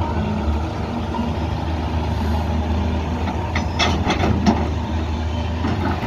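Heavy diesel engine of an excavator running steadily, with a short run of sharp knocks about three and a half to four and a half seconds in.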